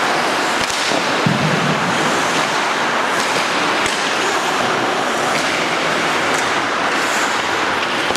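Ice hockey game on the rink: a steady rushing noise with a few faint sharp clicks and knocks of sticks and puck.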